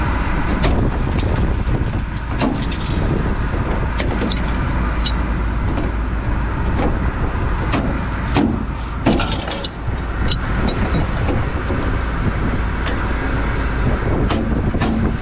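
Combine harvester running steadily under load, with scattered sharp clicks and knocks from the machinery, a cluster of them a little past halfway.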